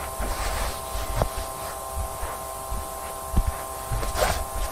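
Steady electrical buzz of overhead fluorescent lights over camcorder tape hiss, with a few soft low thumps and a low rumble underneath.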